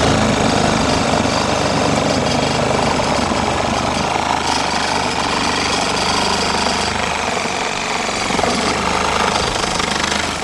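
Reciprocating saw (Sawzall) fitted with a blade meant for steel I-beams, running steadily at full speed as it cuts through the RV wall into the back of the shower enclosure.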